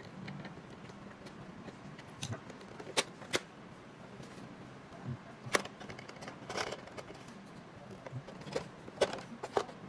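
Irregular sharp clicks and taps of hard plastic parts and a screwdriver as a projector's bottom cover is lifted off and its screws are worked loose.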